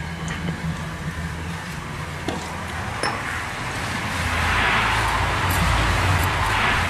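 A few faint clicks over a steady low hum. About four seconds in, a loud rubbing rustle swells and holds for nearly three seconds, handling noise from the handheld camera brushing close against a wall.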